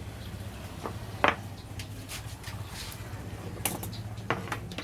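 Steady low electrical hum, with a few sharp clicks and knocks from equipment being handled; the loudest click comes about a second in.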